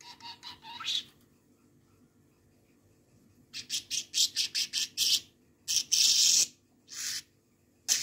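Pet budgerigar calling: a fast run of short, high chirps about halfway through, then a few longer, harsher squawks toward the end.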